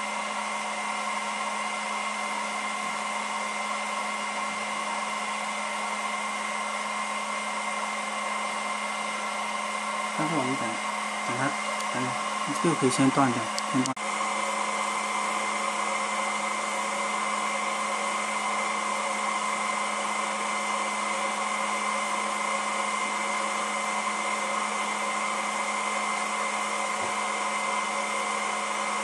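BGA rework station's hot-air heater blower and fans running steadily: a continuous hum with several held tones while the heaters follow an automatic reflow profile. A few brief wavering pitched sounds come in faintly between about 10 and 14 seconds.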